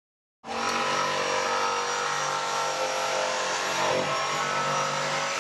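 Electric router with a flush-trim bit running steadily, cutting along the edge of a plywood countertop. It starts sharply about half a second in, out of silence.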